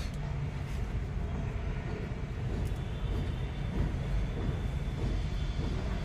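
Refrigeration vacuum pump's electric motor running steadily, a low even drone, while it evacuates the air-conditioning system's refrigerant lines.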